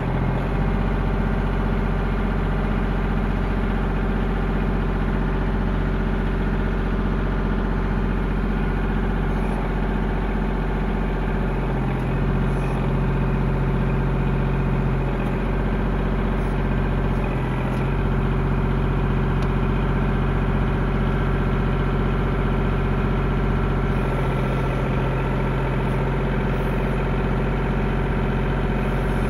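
Tractor engine running steadily, its note shifting slightly about eleven seconds in.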